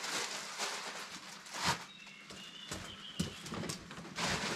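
Rustling and a few sharp knocks of hiking kit being handled and packed, with faint thin high squeaks partway through.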